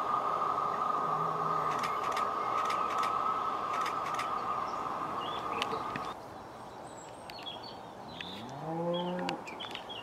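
A Class 150 Sprinter diesel multiple unit pulling away from the station: a steady engine-and-transmission whine over a rumble that cuts off abruptly about six seconds in. After that, birds chirp, and near the end a cow lows once, a short call that rises in pitch and then holds.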